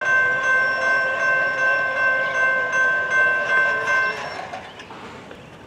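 Railroad grade-crossing warning bell ringing rapidly, about two to three strokes a second, while the crossing gate arm lowers for an approaching train. The ringing stops suddenly about four seconds in, as the gate comes down.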